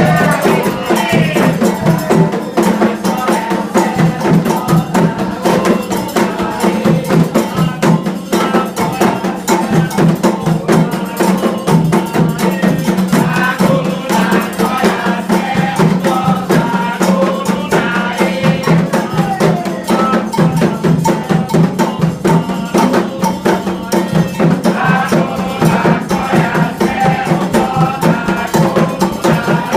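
Candomblé ritual drumming: atabaque hand drums playing a fast, steady rhythm with a metal bell (agogô) ringing on top, and voices singing at times over it.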